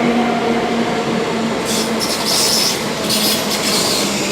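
A Class 321 electric multiple unit pulling into the station, its steady motor whine fading as it slows. High-pitched brake or wheel squeal comes twice, about two and three seconds in.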